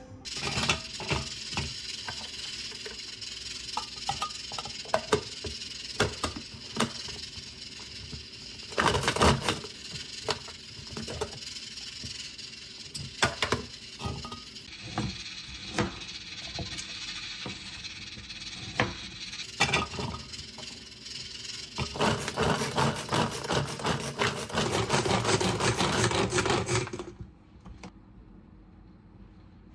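Hand-operated plastic mini chopper mincing chunks of ginger: scattered clicks and knocks of the container and blade as oversized ginger pieces catch on the blade. Near the end come about five seconds of fast continuous chopping, which stops suddenly.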